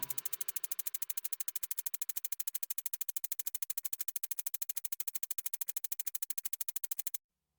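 Rapid, even electronic ticking, about twelve pulses a second, heard as loud electronic music ends; it cuts off suddenly near the end.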